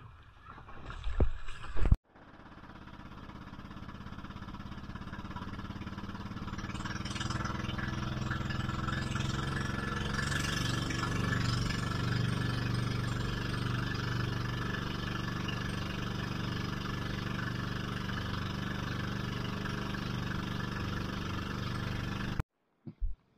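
A few knocks, then an outrigger boat's engine running steadily with the boat underway over the sea. Its level builds over several seconds and then holds until it cuts off near the end.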